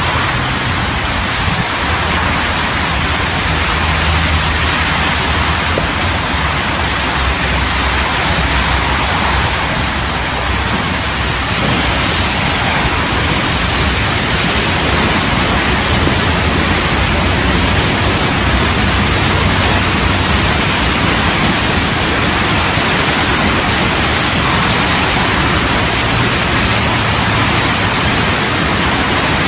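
Steady, loud rushing of a muddy flash flood pouring down a stepped concrete channel, mixed with the tyre hiss of traffic on the wet road beside it.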